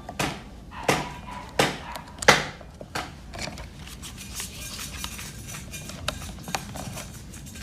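A series of sharp taps and clicks of hard objects, likely tools and parts of a phone being worked on: five loud ones about every three-quarters of a second, then lighter, quicker clicks.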